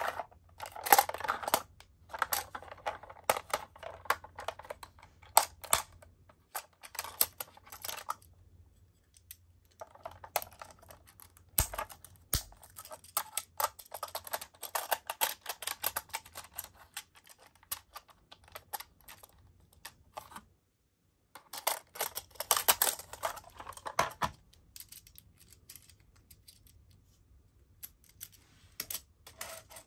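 Plastic toy ambulance handled by hand: irregular clicks, taps and rattles of plastic parts as its rear door is opened and a plastic stretcher piece taken out, with short pauses. One heavier knock about twelve seconds in.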